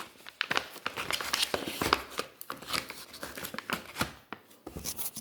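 Rustling and irregular clicks of dog-treat packaging being handled and opened.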